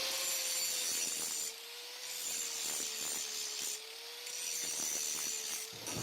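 Angle grinder running against the steel tubing of a motorcycle frame, a steady whine under a high abrasive hiss. The grinding eases off twice, about one and a half seconds in and again near four seconds, as the pressure on the metal lets up.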